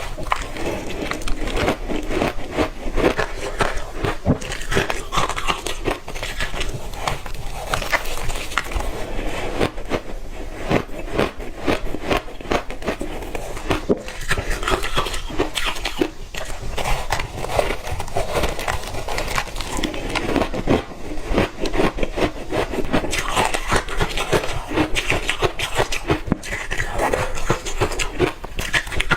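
Close-up crunching of ice chunks coated in matcha powder being bitten and chewed: a continuous run of crisp cracks and crackles.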